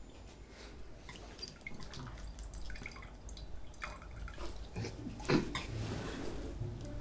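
Water dribbling and dripping into a glass as it is filled slowly to keep the noise down, in small irregular drops, with one louder knock a little past five seconds in.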